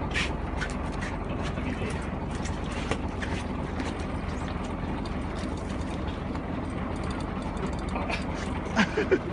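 Steady drone of a fishing boat's engine with sea noise, and scattered light clicks and knocks on deck. A few short, louder sounds come near the end.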